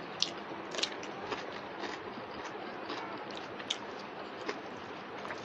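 A man eating by hand, chewing and biting into raw cucumber slices, with short crisp clicks and crunches every half second to a second over a steady background hiss.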